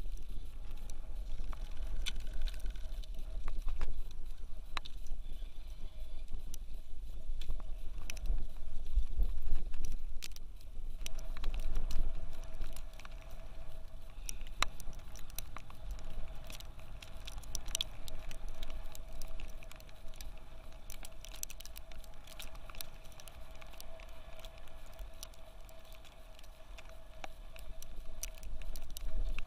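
Wind buffeting the microphone as a constant low rumble, with scattered small clicks and taps. About a third of the way in, a faint steady hum joins and holds on.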